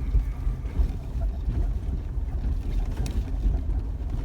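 Jeep Wrangler driving a rough dirt trail: a steady low engine and drivetrain rumble with road noise, and a brief click about three seconds in.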